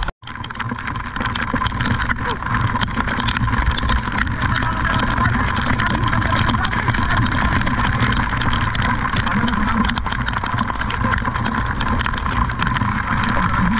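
Busy street in the rain: car engines running and idling in slow traffic, with many small clicks and patter from rain falling throughout.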